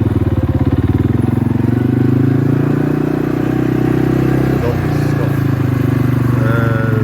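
Quad bike (ATV) engine running steadily at low speed, with an even pulsing beat.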